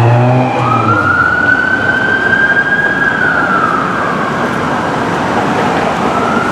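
Electronic wail siren on a fire district chief's Chevy Tahoe, rising slowly for about two and a half seconds, falling, then starting to rise again near the end, over steady street traffic noise. A heavy engine drone fades out in the first second.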